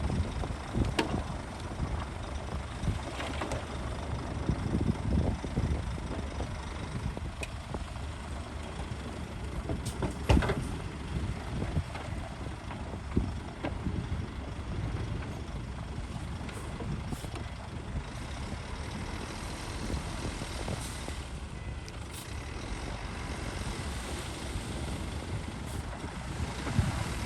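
Heavy earthmoving machinery working: diesel engines of a bulldozer, wheel loader or dump truck running with a steady low rumble, with a few sharp knocks.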